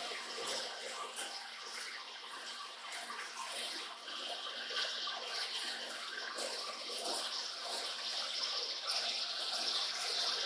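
Flood coolant splashing and hissing over a spinning workpiece as a Warner & Swasey turret lathe drills deep into its face, with a low steady hum underneath.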